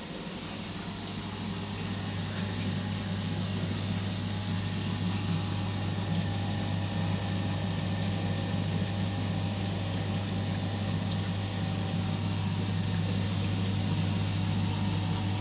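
Reef aquarium pumps and running water: a steady low hum under an even rush of water, getting a little louder over the first couple of seconds.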